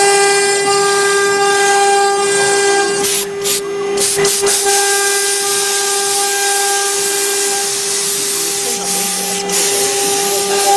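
CNC router spindle running with a steady high whine over a constant hiss of the cutter working MDF, dipping briefly a few seconds in.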